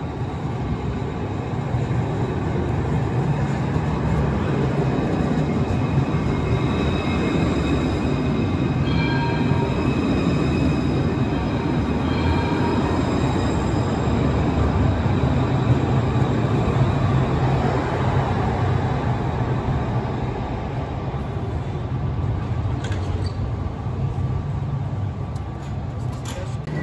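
Citadis street tram approaching and passing close by on its rails, a steady rolling rumble with faint high squealing tones from the wheels on the rails midway through.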